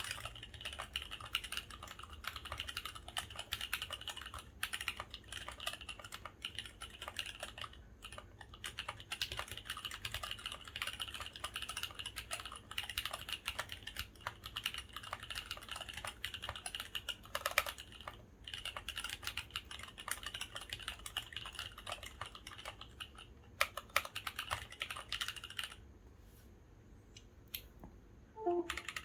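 Fast, continuous typing on a gasket-mounted aluminium and polycarbonate 65% mechanical keyboard with stock Kailh Cream linear switches, PBT Cherry-profile keycaps, and foam and silicone dampening inside. The typing stops for a couple of seconds about 26 seconds in, then resumes near the end.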